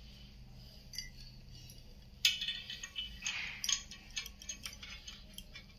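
Glass bangles and a small rhinestone necklace clinking and jingling as hands handle the jewellery: a sharp click about two seconds in, then a quick run of light clinks that tails off near the end.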